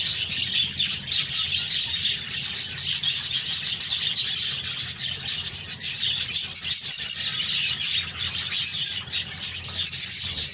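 A colony of budgerigars chattering and chirping without pause, many birds at once.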